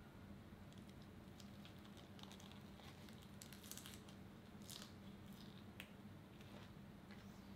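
Near silence with a faint steady hum, and soft rustles and crunches of a lettuce-leaf wrap being folded and bitten, mostly about halfway through.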